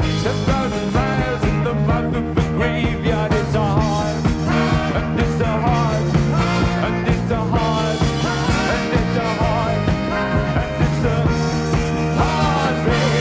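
Rock band playing live, with a male lead vocal over a steady drum beat, bass and keyboards.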